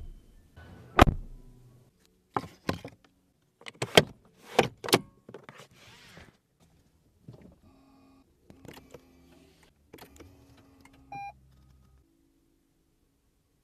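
Lexus ES300h power-window switches on the door panel clicking several times, sharp and separate, then a faint steady power-window motor hum. A short beep sounds about eleven seconds in.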